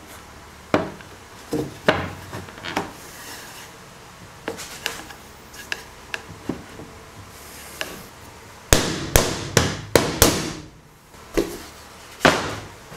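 Wooden knocks and taps as a dovetailed wooden drawer box is fitted together on a wooden workbench: scattered light knocks, then a quick run of about six hard knocks around two-thirds of the way through and one more near the end.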